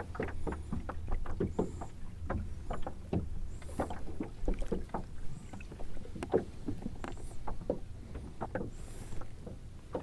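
Water sloshing and splashing at a boat's side in many small, irregular splashes as a small pike is held by the tail and moved back and forth to pump water through its gills, reviving it before release.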